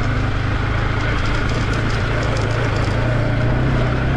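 Yamaha R15 V4's 155 cc single-cylinder engine running steadily at low speed, heard from on the motorcycle as it rides along a dirt lane.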